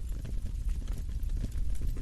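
Wood fire crackling, with many small, irregular pops and snaps over a steady low rumble.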